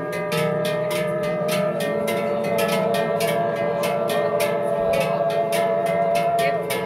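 Men's choir singing a wordless Appenzell yodel in long held chords, over large cowbells shaken in a steady rhythm of about four to five strokes a second.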